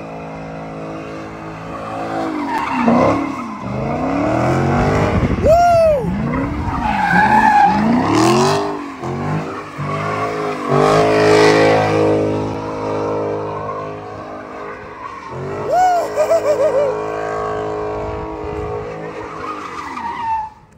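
A car doing donuts on a parking lot: its engine is revved hard, with the revs swinging up and down about once a second, while the tyres skid and squeal.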